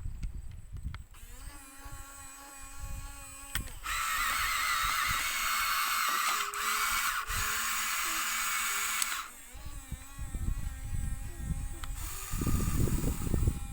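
Small electric motor and gears whining in several runs of differing pitch. The loudest, highest run lasts about five seconds in the middle, and knocks and rumble come near the end.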